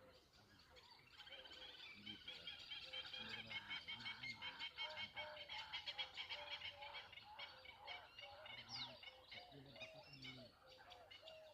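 Many birds chirping together in a faint, busy chorus of rapid high chirps that thickens after about a second and is densest in the middle. Lower repeated calls run under it, and a few quick falling whistles come near the end.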